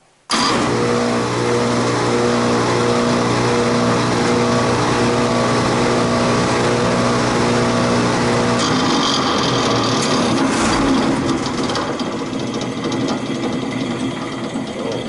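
Belt-driven HVAC blower running loud, a steady hum under a rough mechanical noise that starts suddenly. Past the middle the steady hum drops out and the sound turns rougher, with clicks, easing off a little near the end. The noise is the sign of a bad pulley and a loose belt.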